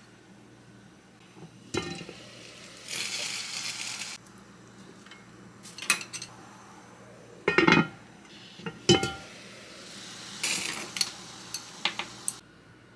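Kitchen cookware and utensils clinking and knocking: a handful of sharp clinks and clatters, with two short spells of hiss in between. The sound stops abruptly near the end.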